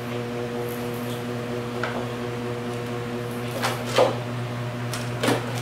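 A kitten's paws and claws scrabbling and thumping on a hardwood floor in a few short bursts, loudest about four seconds in, over a steady low hum.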